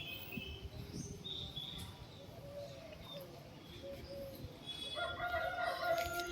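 Small birds chirping on and off, then a rooster crowing near the end in one long call.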